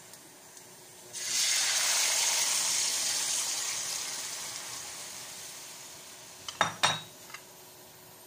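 Beef marinade poured into a hot pan of sautéed garlic, setting off a sudden loud sizzle about a second in that slowly dies away over several seconds. Near the end come a couple of sharp knocks.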